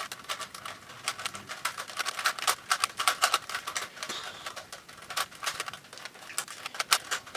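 Rubik's Cube being scrambled by hand: rapid, irregular plastic clicking as its layers are twisted, several clicks a second.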